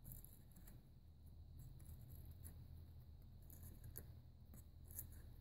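Near silence: faint, scattered clicks and crackles of thick, non-runny slime being pulled by hand from a plastic egg shell, over a low steady hum of room tone.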